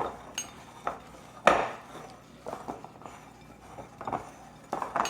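A spatula knocking and scraping against a mixing bowl while stirring a stiff oatmeal chocolate chip cookie dough, with irregular clacks, the loudest about one and a half seconds in.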